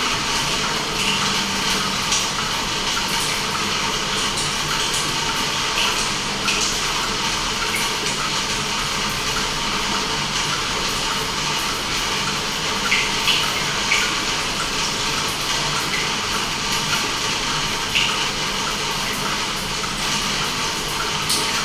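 Steady rain and water-droplet sound: an even hiss with many small plinks of drops, and a few louder drops about two thirds of the way in.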